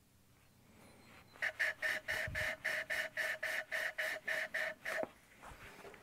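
A valve being hand-lapped onto its seat in a Ford 555 backhoe's diesel cylinder head with 500-grit lapping compound. The suction-cup lapping stick is twirled back and forth between the palms, giving a rapid rhythmic gritty scrape of about four strokes a second. It starts about a second and a half in and stops near five seconds.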